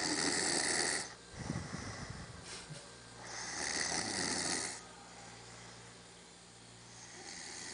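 A sleeping person snoring: three loud snores on the in-breath, about four seconds apart. After the first comes a low, fluttering breath out.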